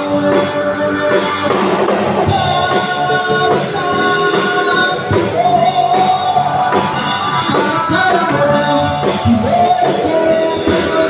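Live rock band playing: drum kit, electric bass and electric guitar through amplifiers, with a man singing into a microphone.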